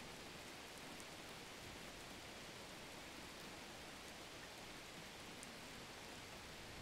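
Faint, steady hiss of background noise, with no distinct sound events.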